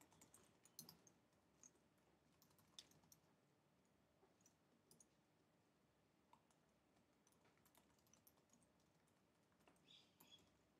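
Faint, scattered computer keyboard keystrokes over near silence, with a short cluster of taps near the end.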